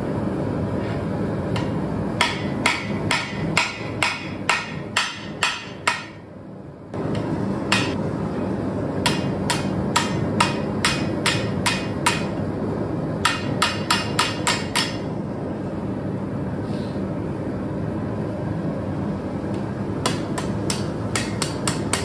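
Blacksmith's hand hammer striking red-hot coil-spring steel on an anvil, forging a knife blade. The blows come in quick runs, about three a second, with pauses between the runs, over a steady low rumble.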